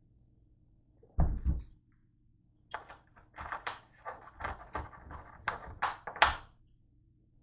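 A full plastic 2-liter Diet Coke bottle set down hard on a countertop, a heavy thump about a second in, followed by a string of sharp plastic clicks and knocks as the bottle is handled, the loudest near the end.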